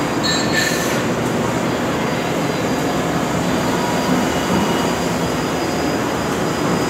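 Chevalier FSG-2440TX surface grinder running an automatic cycle: the spindle and grinding wheel spin while the table traverses, giving a steady, even rush of noise with a faint high whine.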